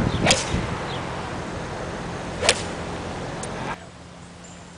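Golf club striking a ball off the tee: a sharp crack about a third of a second in, and a second sharp crack about two and a half seconds in. Underneath is steady background noise with a low hum, which drops away abruptly near the end.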